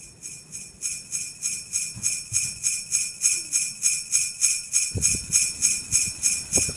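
Sleigh bells shaken in a steady rhythm, about four shakes a second, with low thumps joining about five seconds in.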